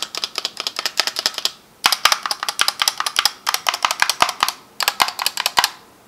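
Razer Huntsman Tournament Edition's linear optical switches and stabilized keys clacking under rapid presses, in four quick bursts of clicks with short pauses between. It is a really loud sound for a linear keyboard.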